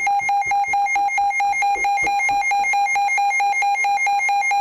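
Loud electronic alert alarm of a NOAA weather radio receiver, sounding for an incoming warning: a rapid, evenly pulsing two-pitch warble.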